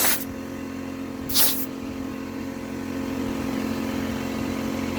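Two short hissing blasts of compressed air from an air blow gun, one right at the start and one about a second and a half in, over the steady hum of a running air compressor.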